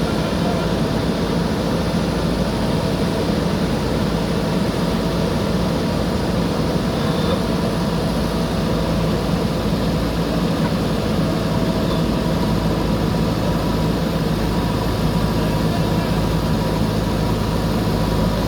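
Diesel engine of a JCB backhoe loader running steadily at an even speed, with no revving or change in load.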